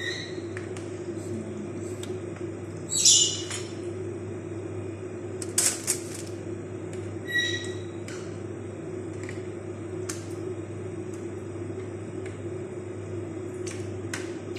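Aluminium foil crinkling and rustling as pieces of marinated chicken are laid on it, with three louder crinkly bursts in the first half and small clicks after. A steady low hum runs underneath.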